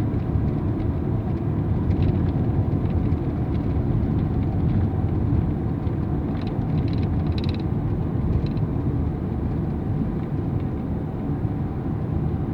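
Steady road noise inside a moving car: a low rumble of engine and tyres, with a few faint high clicks around the middle.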